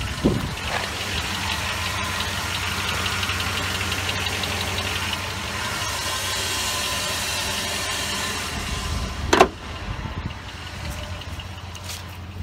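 Dodge Dakota's 4.7-litre V8 idling steadily, heard close to the engine bay with a steady hiss over it. About nine seconds in there is a single sharp bang, after which the engine sounds quieter.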